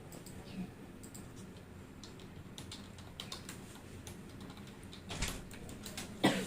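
Scattered clicks of a computer keyboard being typed on, with a couple of louder knocks about five and six seconds in.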